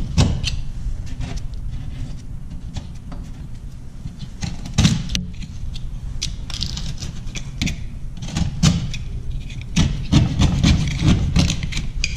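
Snap-off utility knife scraping and cutting along the torn edges of holes in drywall, trimming away loose face paper and gypsum in short, irregular strokes with clicks against the board. The strokes come thicker in the last few seconds.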